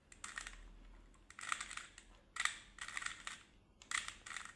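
Rubik's Cube being turned by hand, its plastic layers clicking and clattering in several quick bursts of moves with short pauses between.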